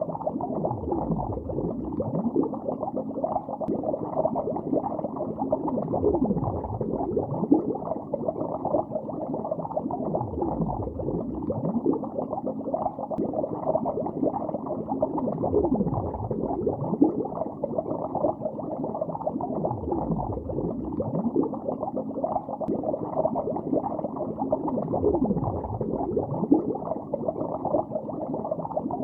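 Underwater bubbling recorded below the surface: a continuous dense stream of muffled bubbles with no high end, full of short gliding blips, and a low whooshing swell every few seconds.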